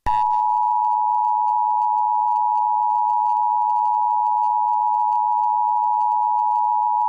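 Emergency Alert System attention signal: a loud, steady two-tone beep of 853 and 960 Hz held without a break, the signal that warns an emergency message is about to follow.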